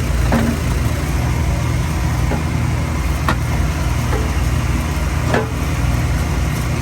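A steady low engine drone, with several sharp knocks at irregular intervals.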